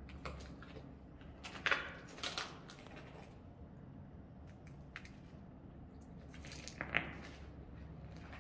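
A few footsteps on a gritty concrete floor strewn with debris, about two seconds in and again near seven seconds, over a steady low hum.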